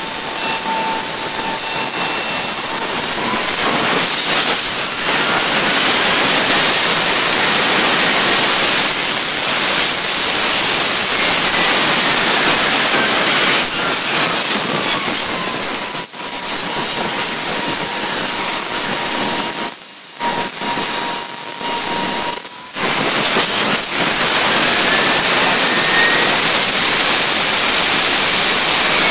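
Kingtech K80E model-aircraft turbojet running on its first run: a loud jet hiss with a high turbine whine that glides up and down several times as the throttle is moved, reaching around 141,600 rpm near the end.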